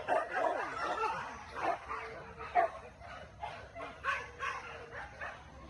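Hunting dogs barking and yelping, a rapid jumble of short barks and high yips with whining glides in pitch between them.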